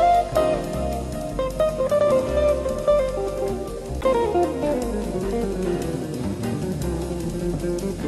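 Background music: guitar with a drum kit and bass, at a steady beat.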